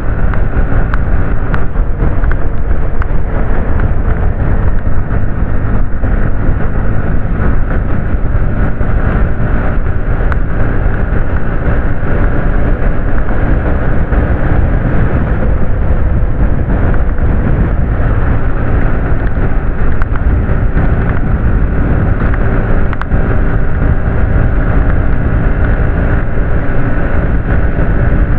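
Bajaj Pulsar NS125 single-cylinder motorcycle engine running at a steady highway cruise, with wind rushing over the microphone.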